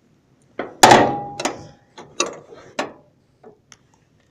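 Metal parts clanking and knocking as they are handled: one loud clank about a second in that rings briefly, then four or five lighter knocks.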